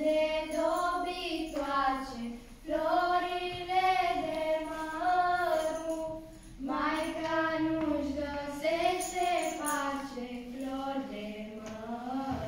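A group of children singing a Romanian Christmas carol (colind) together, unaccompanied, in phrases a few seconds long with short breaths between them.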